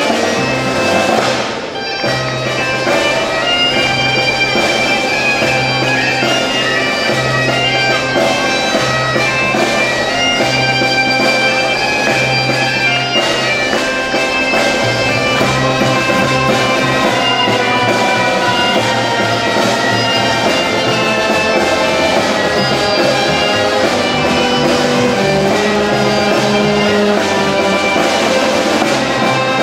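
Live folk band playing a dance tune, led by a bagpipe over diatonic accordions, fiddle, saxophone, acoustic guitar, double bass and snare drum.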